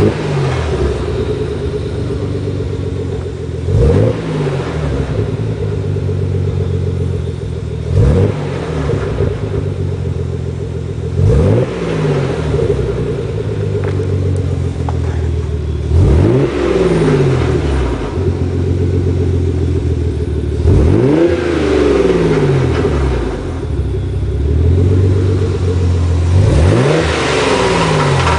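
Nissan 300ZX Twin Turbo's V6 idling and blipped about every four to five seconds, each rev rising quickly and falling back to idle. A clicking can be heard most as the revs fall, which the owner wonders may come from a turbo.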